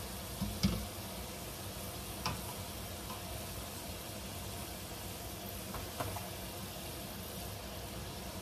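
Samosas deep-frying in a wok of oil, a steady sizzle, with a wire spider skimmer knocking against the wok three times: about half a second in (the loudest), about two seconds in, and about six seconds in.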